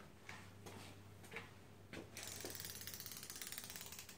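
A ratchet wrench's pawl clicking rapidly for about two seconds in the second half as the handle is swung back on a socket, after a few light single clicks and knocks.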